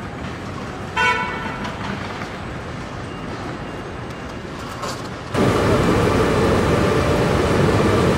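Car-factory assembly-line noise, steady and mechanical, with a short horn toot about a second in. It jumps to louder, denser machinery noise about five seconds in.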